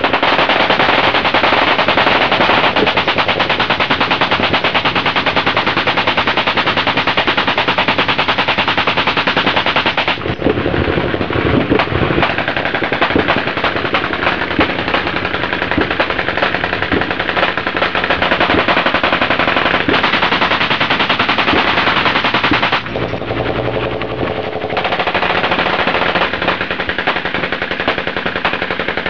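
Many machine guns firing full-auto at once: a continuous dense crackle of overlapping shots, with a full-auto AK-47 firing close by. The firing thins a little about a third of the way in and briefly lightens near the end before picking up again.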